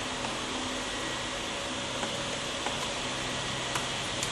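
Steady background hiss of a room, with a few faint clicks near the end from small laptop parts being handled.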